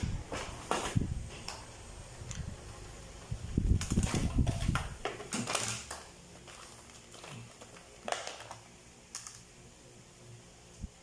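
Irregular light clicks, taps and rustling as small electronic parts and a circuit board are handled, busiest about four to six seconds in.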